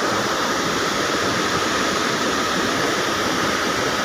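Floodwater rushing steadily through the opened floodgates of an overflowing lake, a continuous even roar of water.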